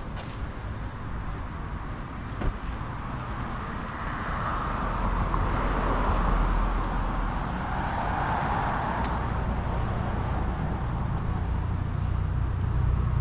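Road traffic: a vehicle passes, its tyre and engine noise swelling in the middle and fading again over a steady low rumble. A few short, high bird chirps sound over it.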